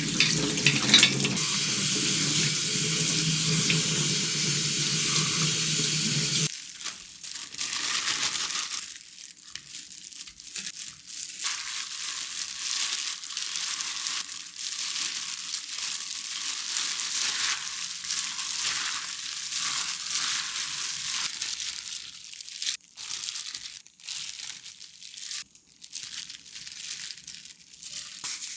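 Kitchen tap running hard into a sink, stopping about six seconds in. It is followed by softer, uneven hissing with scattered clicks, the kind made by food sizzling or by rinsing and handling things at the sink.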